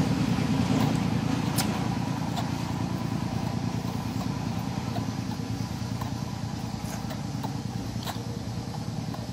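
A motor engine running nearby, a low, rapidly pulsing drone that grows steadily quieter, with a few faint clicks.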